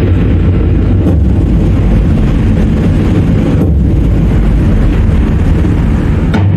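Loud dramatic music for a contemporary dance solo, dominated by a deep, steady rumble and heavy bass, with brief breaks about one second in and near four seconds.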